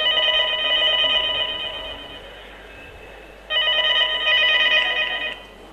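Telephone ringing twice, each ring about a second and a half to two seconds long with a warbling trill, a pause between them.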